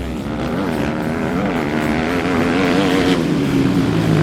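Engine sound of an ATV: a small engine running steadily, its pitch wavering a little, with a deeper note coming in near the end.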